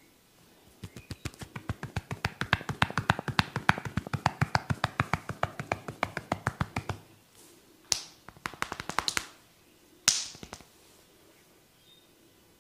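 Rapid percussive hand-tapping massage on a head, a fast even run of slaps lasting about six seconds, followed by a few sharper single strikes.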